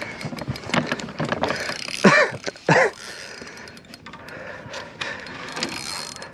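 Fishing reel ratcheting in rapid clicks while a big smallmouth bass is fought on the line, with two brief exclamations about two seconds in.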